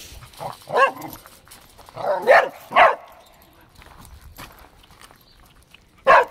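A dog barking: a single bark about a second in, three quick barks a second later, then another bark near the end.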